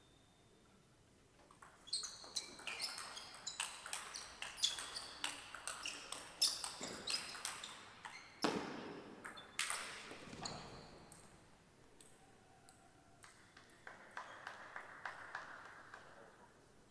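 A table tennis rally: the celluloid-type ball clicks sharply off the rubber bats and the table in a quick, irregular run of hits. It starts about two seconds in and ends about eleven seconds in, with a few fainter clicks near the end.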